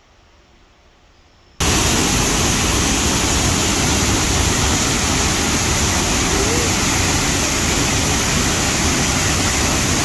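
Loud, steady rushing of a waterfall that cuts in suddenly about a second and a half in, after a quiet start.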